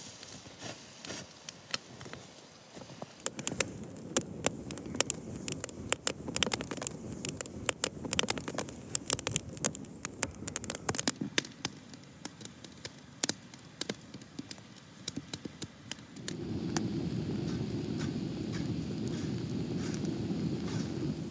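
Wood fire burning inside hollowed upright logs, crackling with many sharp pops. About five seconds before the end, a steady low rumble of the fire takes over.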